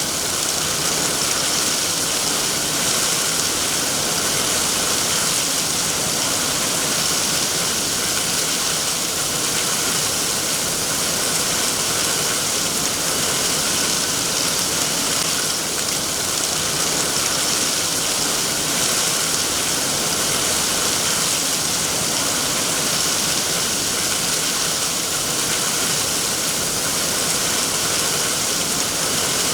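Steady rain, an even hiss with no breaks or single events.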